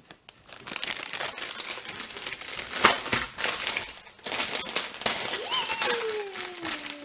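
Plastic wrapper crinkling and crackling irregularly in hands. Near the end, a young child's voice slides down in pitch.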